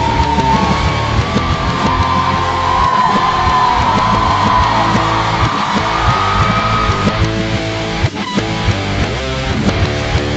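Live rock band music led by electric guitar over drums and bass, with a high melody line that slides and bends in pitch for most of the passage; it drops out briefly about eight seconds in before the band comes back.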